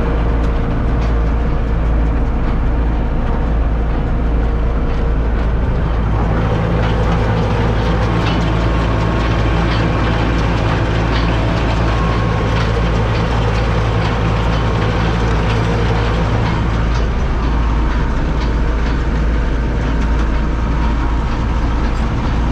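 Tractor engine running steadily under a constant low hum, with rattling and clicking over it; the engine note shifts about six seconds in and again near seventeen seconds.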